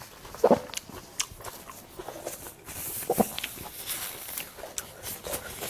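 A person eating close to the microphone: scattered mouth clicks and smacks of chewing, with two short hums, one about half a second in and one about three seconds in.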